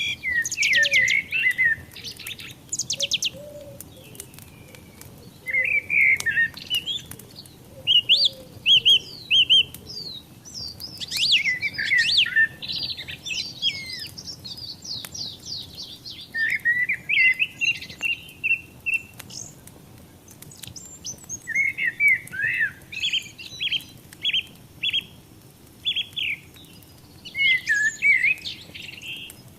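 Songbirds chirping and singing in repeated short bursts of quick, high notes and trills, over a faint steady background noise.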